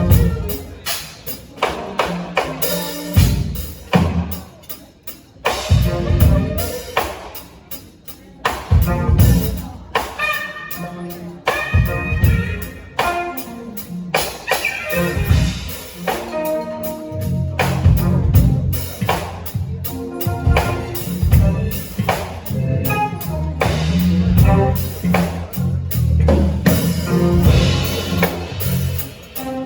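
Band music with a drum kit, pitched instruments and a bass line, the bass and drums growing steadier and fuller about halfway through.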